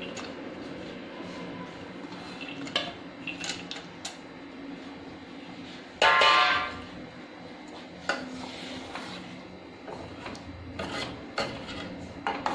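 Steel kitchenware clinking as nuts are added to a steel pan of milk: small taps of a steel plate and spoon against the pan, a louder ringing metallic clang about six seconds in, then scattered taps of a spoon stirring the pan near the end.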